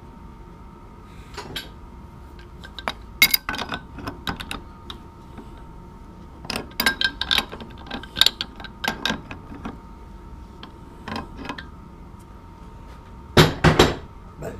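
Irregular metal clanks and knocks of tools being handled at a stopped metal lathe, in several clusters with the loudest pair near the end, over a faint steady high hum.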